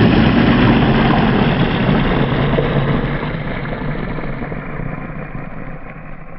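Long, low, rasping monster growl sound effect that slowly fades away.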